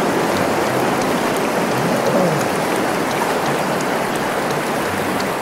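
Steady, loud rushing water noise.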